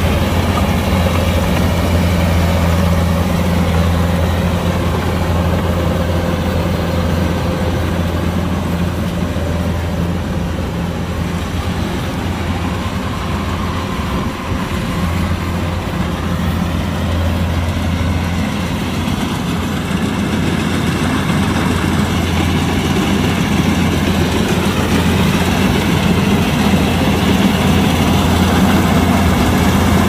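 Kubota combine harvester's diesel engine running steadily, with a brief small dip in level about halfway through.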